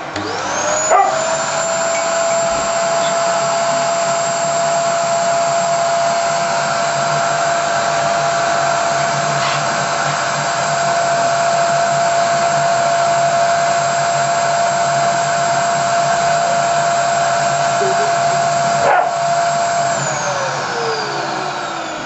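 Vacuum cleaner switched on, its motor spinning up to a steady high whine within the first second. It runs evenly, then is switched off about 20 seconds in and winds down with a falling pitch.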